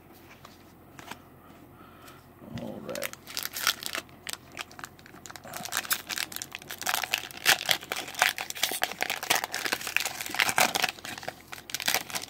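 Foil wrapper of a Magic: The Gathering booster pack being torn open and crinkled by hand, a dense crackling that starts about two seconds in.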